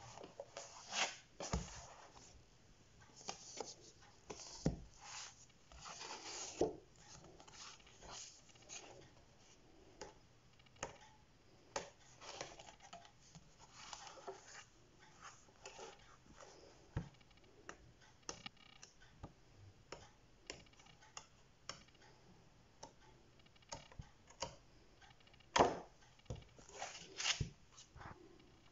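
Paper rustling and soft clicks as the pages of a large paperback colouring book are flipped and the books are handled on a table, with a sharper knock near the end.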